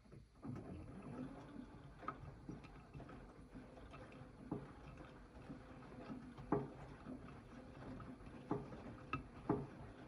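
AEG 8000 washing machine drum turning with a steady low rumble, and a sharp knock every second or two, the loudest ones past the middle and near the end. The knock keeps coming with the detergent drawer removed, so the drawer is not the cause.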